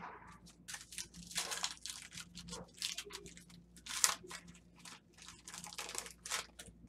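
Trading card pack being torn open and its wrapper crinkled while the cards are handled: a run of irregular crackles and rustles, loudest about four seconds in.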